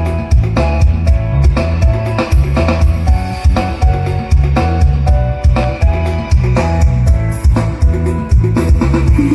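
Band music with a drum kit, heavy bass and guitar, played loud with a steady beat.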